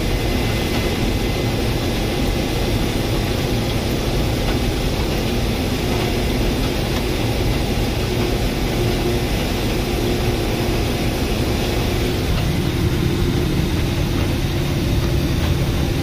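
Case IH 1680 Axial-Flow combine running under load while threshing a canola swath, heard from inside the cab: a steady mechanical drone with a low rumble that grows a little heavier about twelve seconds in.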